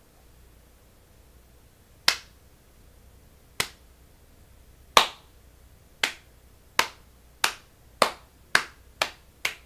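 Finger snapping: about ten sharp snaps starting about two seconds in, slow at first and speeding up steadily, like a building round of applause.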